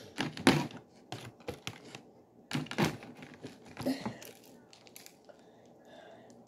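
Crinkly wrapping rustled and crinkled in four short bursts over the first four seconds, then dying down.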